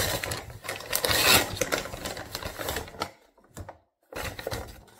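Parcel packaging rustling and crinkling as it is opened by hand, most heavily in the first three seconds, then a few shorter rustles.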